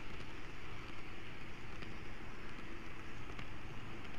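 N-gauge model train running along the track with the camera riding on it: a steady whirring hum with a few faint clicks.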